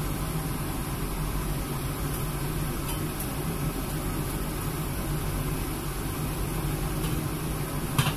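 Steady whir and hum of a kitchen range hood fan running over the stove, with a single sharp clink near the end as the wok's lid is handled.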